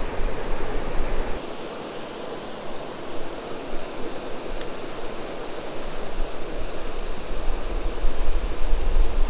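Steady rush of a flooded creek pouring over a low weir, with wind buffeting the microphone, strongest near the end.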